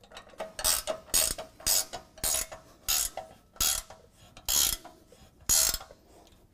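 Hand ratchet wrench clicking in about eight short bursts of back-strokes, roughly half a second to a second apart, as the bumper mounting bolts are tightened.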